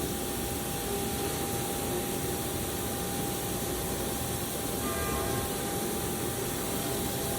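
Haas CNC mill running a cutting program: steady machine noise with a steady whine, and a few faint higher tones about five seconds in.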